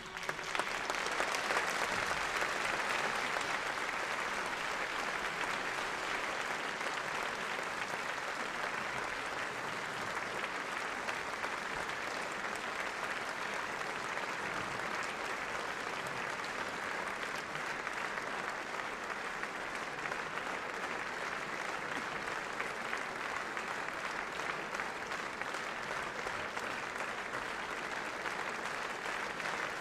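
Theatre audience applauding: dense, steady clapping that swells over the first couple of seconds and then holds.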